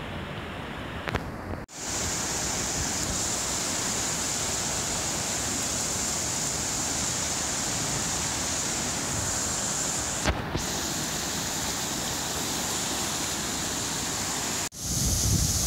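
Floodwater rushing, a steady even roar of water, broken by two brief dropouts, one about two seconds in and one near the end, and a short click partway through.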